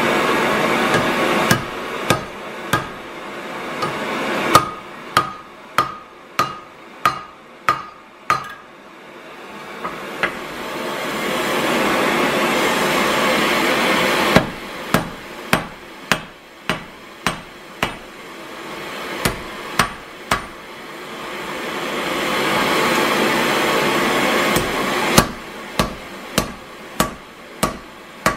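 Hand hammer striking red-hot iron on an anvil in bouts of quick blows, about two a second, some with a short ring. Between the bouts a steady rushing noise swells up and then cuts off.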